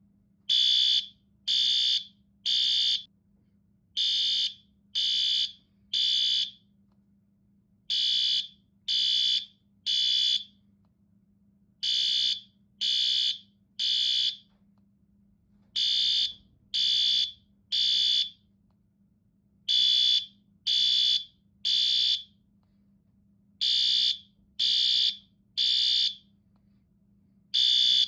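Fire alarm sounding a high-pitched beep in repeated groups of three, each beep about half a second, with a longer pause between groups. This is the temporal-three pattern that signals evacuation.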